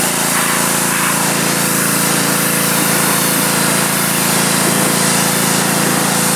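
A power tool running steadily at a constant pitch.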